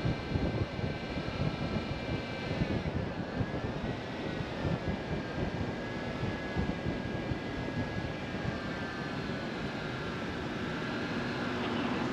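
Car driving: low road rumble under a steady high whine of several tones that dip in pitch together about three seconds in and come back up.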